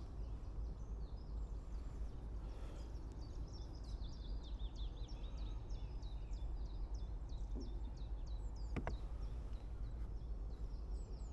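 Small birds singing in quick chirping phrases over a steady low rumble, with one sharp click about nine seconds in.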